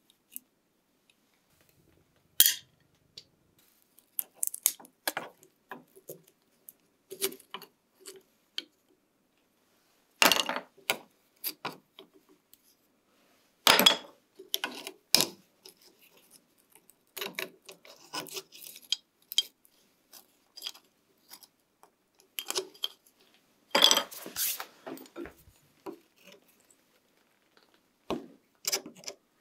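Hand tools clicking, tapping and scraping on an old knife's steel tang and brass bolster, clamped in a steel vise, as the wooden handle scales are taken off and a steel bar pries at the tang. Irregular light metallic ticks, with a few louder clanks spaced through it.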